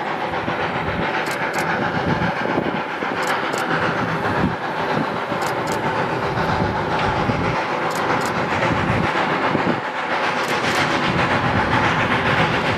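New Hope & Ivyland No. 40, a Baldwin 2-6-2 steam locomotive, approaching under steam: a steady chuffing rumble of exhaust and running gear, with pairs of sharp clicks about every two seconds. It grows a little louder over the last few seconds as it draws closer.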